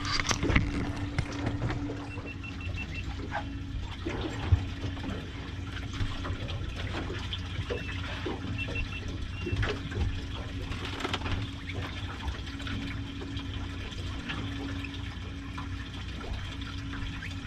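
Water sloshing and splashing against the hull of a fishing boat over a steady low hum, with scattered small knocks. Twice a short run of high beeps sounds, about two seconds in and again at about eight and a half seconds.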